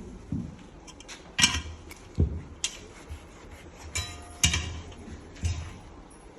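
A series of about seven irregular clinks and knocks of hard objects being handled and set down, some ringing briefly.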